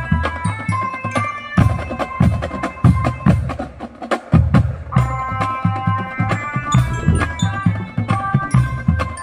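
Non-brass marching drum band playing: steady low drum strokes and sharp clicks of snares or rims under a held, pitched melody line, with a short drop in volume about four seconds in.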